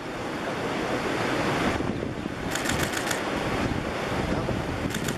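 Small sea waves washing over a rocky shoreline, with wind on the microphone. Twice, a short run of rapid high clicks.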